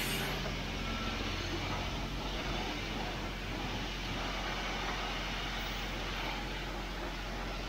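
Self-serve car wash high-pressure spray wand blasting water against a car's body and wheel: a steady hiss of spray over a low, steady hum.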